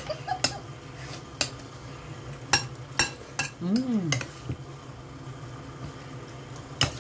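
Serving spoon clinking against a glass bowl and a plate as noodles are scooped out: several sharp separate clinks, most in the first four seconds and one more near the end. A short hummed sound rises and falls about four seconds in.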